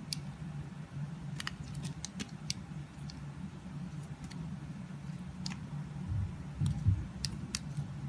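Craft-knife blade carving a bar of dry soap: scattered crisp little clicks and crackles as thin curls are shaved off, over a steady low hum. A couple of dull thumps sound about three-quarters of the way through.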